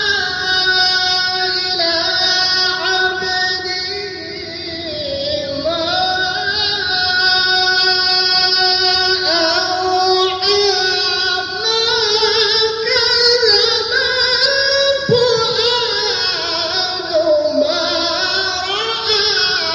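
A qari's high-pitched solo voice reciting the Qur'an in the melodic contest style, sung into a microphone and amplified, in long held phrases that waver and glide, with a short breath pause about four seconds in.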